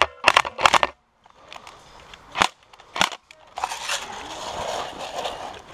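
A quick run of sharp clacks and knocks from the player's gear, then two more single knocks, then rustling of dry leaves and clothing as the player shifts and moves over leaf litter.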